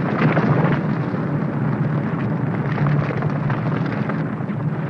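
Film sound effect of an avalanche: a steady, continuous rush of falling snow and rock.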